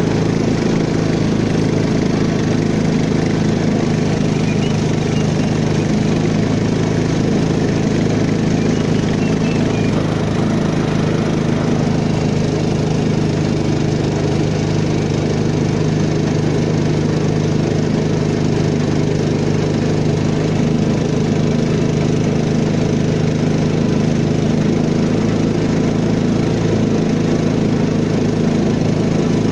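Small single-cylinder engine of a peque-peque river canoe running steadily at an even, unchanging speed.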